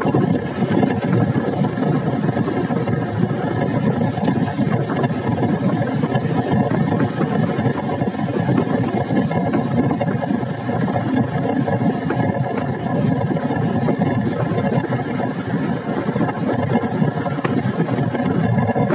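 Motorcycle engine running at a steady cruising speed while riding, a continuous even engine note over a constant rush of road and wind noise.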